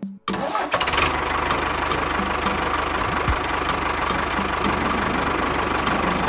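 A motor starts about a second in and then runs steadily with a fast, even beat.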